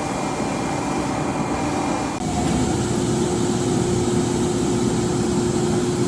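A 48-inch Froriep vertical turret lathe running under power, with a steady mechanical drone. About two seconds in, the sound changes and gets a little louder as a steady low hum comes in and a higher tone drops away.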